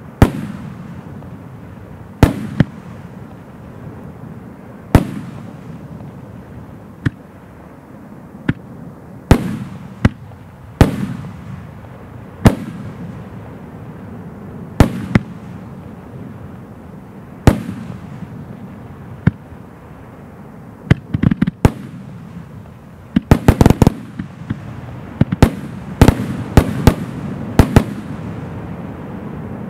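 A 25-shot 3-inch fireworks cake firing: sharp bangs of shells launching and bursting every one to three seconds, each trailing off in a low rumble. Near the end they come in quick runs of several bangs.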